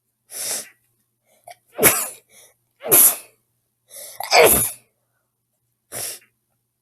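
A girl sneezing in a fit: three loud sneezes in quick succession, with softer bursts shortly before and after them.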